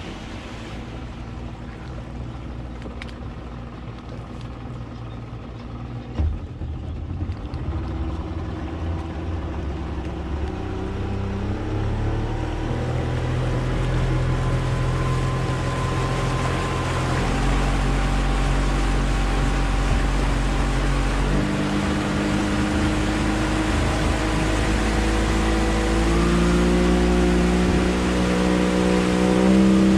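Outboard motor of a small open passenger launch running and speeding up: its drone rises in pitch in several steps and grows louder through the second half. The rush of water and wind runs underneath.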